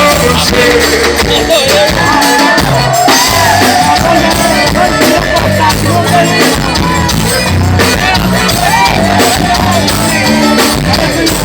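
Xote (forró) song playing, with a singing voice carrying the melody over a bass line and a steady beat.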